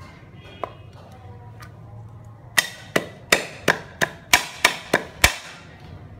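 Steel cleaver chopping spring onions on a round chopping board: about nine sharp knocks of the blade through the onions into the board, roughly three a second, starting a couple of seconds in and stopping shortly before the end, after a single light tap near the start.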